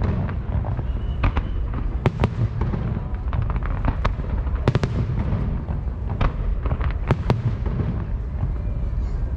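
Aerial fireworks shells bursting in quick, irregular succession: a string of sharp bangs, several close together at times, over a steady low rumble.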